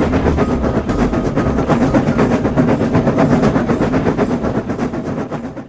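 Train running along the track: a steady rumble with rapid, even clacking of wheels over rail joints, fading away near the end.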